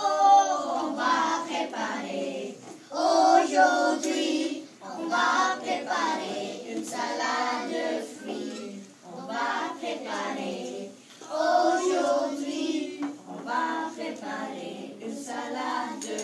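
A group of young children singing together with a woman, a French children's song about making a fruit salad.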